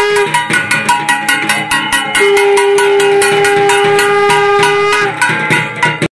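A bell-metal gong (kashor) beaten rapidly with a stick, about five strikes a second. A long, steady held tone runs over it; the tone breaks off just after the start and resumes about two seconds in.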